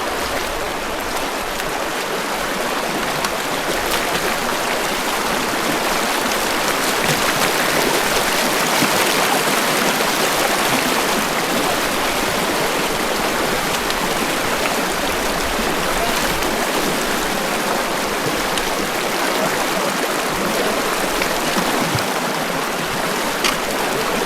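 Mountain stream rushing in a loud, steady flow of water.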